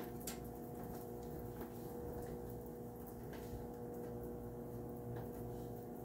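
Steady low electrical hum of an indoor room, with a few faint, scattered clicks.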